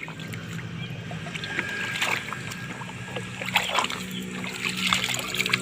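Water splashing and sloshing in irregular strokes as a muddy toy cement mixer truck is rinsed by hand in a tub of water, over a steady low hum.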